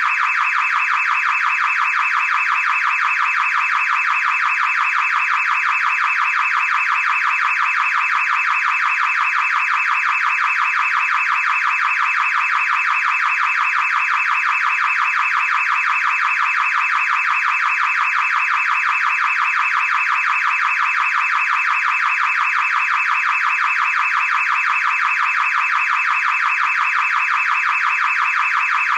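Car alarm siren sounding without a break: a loud, high tone pulsing very fast and evenly.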